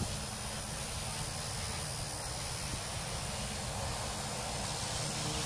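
XK K110 micro RC helicopter's brushless motor and rotor running steadily as it flies low, with wind noise on the microphone.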